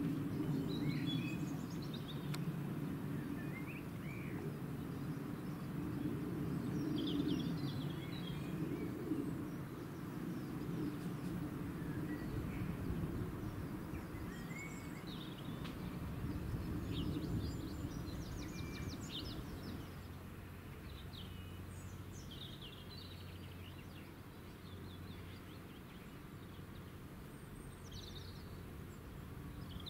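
Outdoor ambience of scattered bird chirps over a low rumble. The rumble fades about two-thirds of the way through, leaving a steady low hum.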